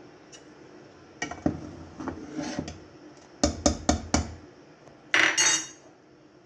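Steel kitchenware clinking and knocking against a steel cooking pot: scattered clinks, then a quick run of about five sharp knocks about halfway through, and a brief harsher clatter about five seconds in.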